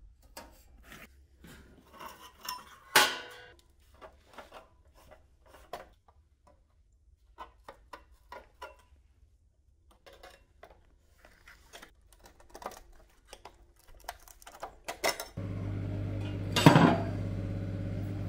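Steel sheet-metal panels being handled and shifted against each other, with scattered light clinks and scrapes and one loud metallic clank about three seconds in. From about fifteen seconds a machine starts up with a steady hum, and there is another clank soon after.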